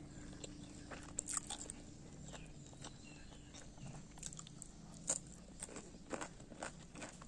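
A person biting and chewing crunchy food by hand-eaten mouthfuls, with irregular crisp crunches and smacks close to the microphone.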